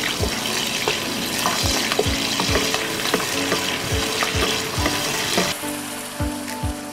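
Scallion, ginger, garlic and Sichuan chili base sizzling in hot oil while being stir-fried with a wooden spatula in a pot. The sizzle drops away suddenly about five and a half seconds in.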